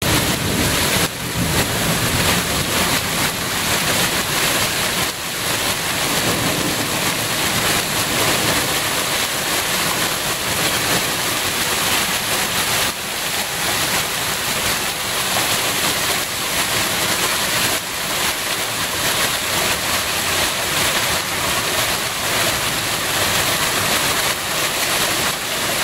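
Hailstorm with heavy rain: a dense, steady rush of rain and hailstones pelting the ground.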